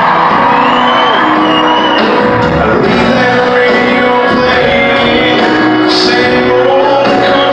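A live country band plays while a vocalist sings, with shouts from the crowd. It is heard loud and echoing through a phone's microphone from within the audience in a large hall.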